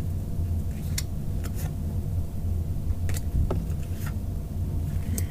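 Yu-Gi-Oh! trading cards being flipped one by one from a stack in the hand, several short, irregular card snaps and slides, over a steady low hum.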